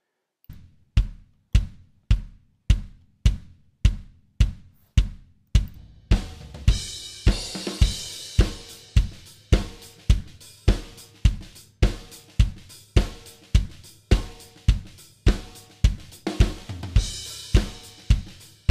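Drum playback: a sampled Superior Drummer kick, triggered from MIDI as a replacement for the original kick, hitting at a steady tempo of a little under two hits a second, along with the recorded snare track. A cymbal wash rides over the hits for a couple of seconds from about six seconds in, and again near the end.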